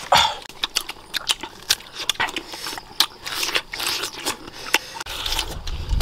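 Sharp, irregular crunches and wet crackles of firm mango being bitten into and chewed, close to the microphone. A low rumble comes in near the end.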